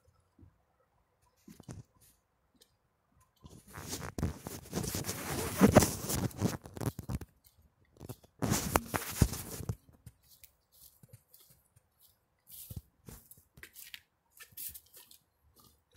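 Rustling and rubbing noise on a handheld phone's microphone in two long stretches in the first half. After that come short, separate crunches of footsteps through dry leaves and grass, more frequent near the end.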